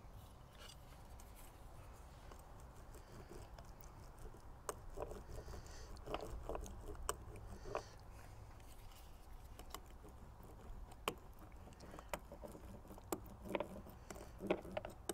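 Metal ribbed laminating roller worked back and forth over resin-wet fiberglass cloth, faint and irregular, with small clicks and wet crackling squelches. A low steady rumble lies underneath.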